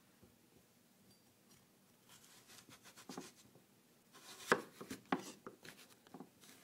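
Kitchen knife slicing the zest and pith off a Buddha's hand citron on a wooden cutting board: quiet at first, then soft rasping cuts about two seconds in, and a few sharper knocks in the second half.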